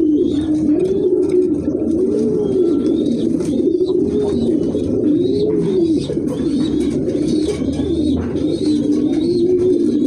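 Domestic fancy pigeons cooing continuously, several birds' rising-and-falling coos overlapping one after another, with faint high chirps among them.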